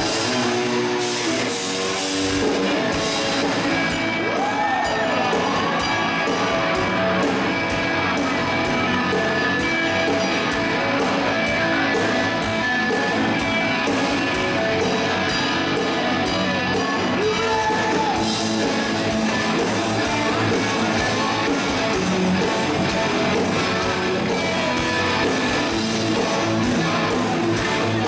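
Live rock band playing: amplified electric guitar over drums at a steady beat.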